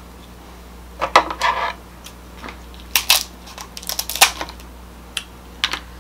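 King crab leg shells cracking and crunching as they are snapped apart by hand: a run of short, sharp cracks that starts about a second in.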